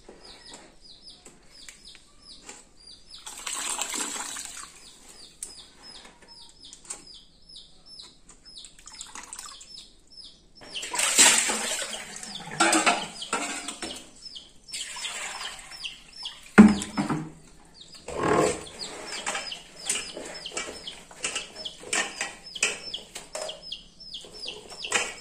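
Steel pots handled on a concrete floor: mushroom pieces rustling and being tipped from one pot into another, loudest about eleven seconds in, with a dull knock of a pot set down a few seconds later. Birds chirp rapidly and repeatedly throughout.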